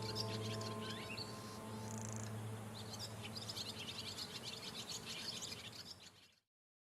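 Many small birds chirping and singing over the last of a soft, sustained music chord with a low drone, which fades out in the first couple of seconds. All sound cuts off suddenly near the end.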